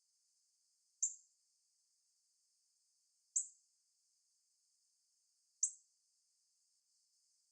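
Female northern cardinal giving single sharp chip calls, three in all, about two seconds apart, each short and high-pitched.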